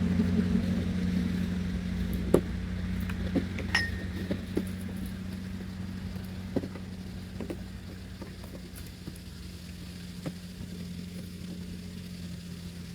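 A motor engine's low, steady hum, slowly fading away, with scattered light clicks and clinks from sailboat rigging hardware being handled.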